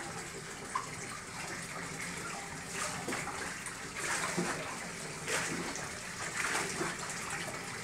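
Bathwater splashing and sloshing as a chocolate Labrador standing in a bathtub is scrubbed by hand, with several short splashes over a steady wash of water noise.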